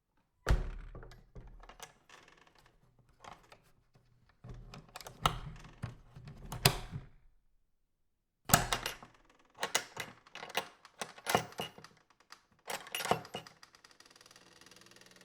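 Farm door being worked and its metal latch clattering shut: clusters of sharp knocks and clacks, the loudest about half a second in and about eight and a half seconds in, with a run of quicker clicks and knocks toward the end.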